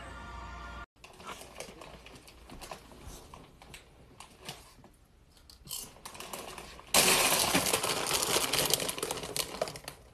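Faint clicking of typing on a laptop keyboard. About seven seconds in, a loud, dense crinkling of a plastic chip bag being grabbed and handled takes over for around three seconds.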